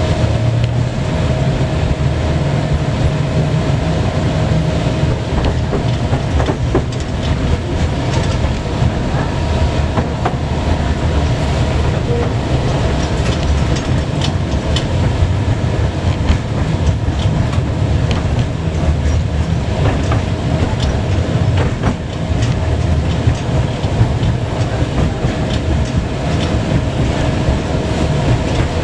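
A tram running along its track, heard from inside the car: a steady low rumble, scattered clacks from the wheels on the rails, and a steady whining tone.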